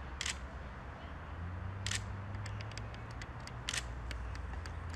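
Sharp clicks: three louder ones about a second and a half apart, with a run of quicker, fainter clicks in the second half, over a steady low hum.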